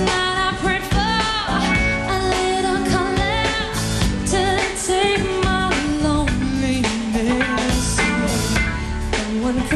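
Pop song performed live by a band, with a woman's lead voice singing over the full accompaniment.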